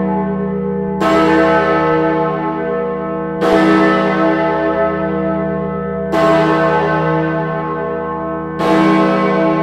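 Great George, a 9.5-ton bell, swinging full circle on its wheel and striking four times, about two and a half seconds apart. Each stroke rings on with a deep hum under the next. It is tolling for the Queen.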